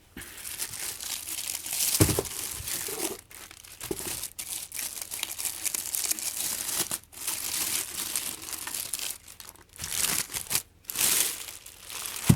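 Packaging being unwrapped by hand: irregular crinkling and rustling as speakers are pulled from their wrapping, with a thump about two seconds in.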